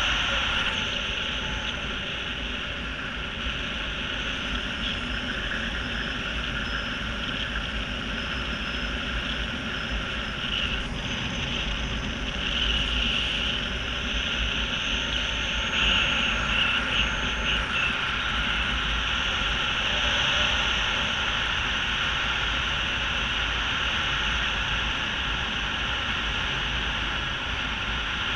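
Wind rushing over an action camera's microphone during a skydive descent: a steady rushing noise that swells slightly now and then.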